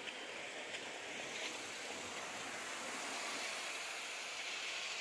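Steady outdoor urban background noise: a hiss with distant road traffic. A few faint clicks come in the first second and a half.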